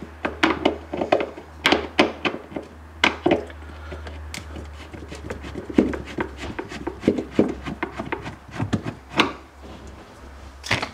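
Irregular clicks, taps and rubbing of plastic parts as screws are worked out of a fridge's plastic fan cover and the panels handled, over a low steady hum.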